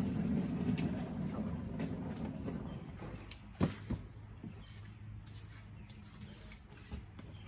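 Cardboard boxes being handled, with one sharp knock about three and a half seconds in and a few faint clicks, over a low hum that fades away in the first few seconds.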